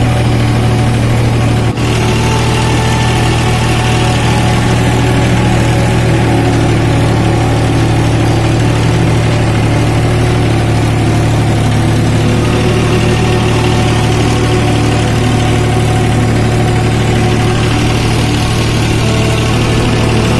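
Tractor engine running steadily close by, a constant low drone with a single brief knock just under two seconds in.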